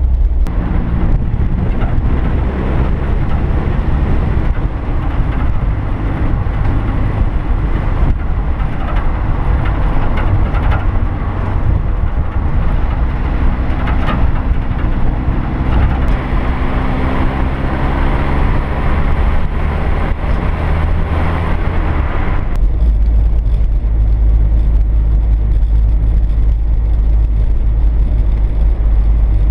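Triumph Herald 13/60's four-cylinder engine driving on the road, its note rising and falling with the revs, over heavy wind rumble on the microphone. About three quarters of the way through the sound changes abruptly to a duller, heavier rumble heard from inside the cabin.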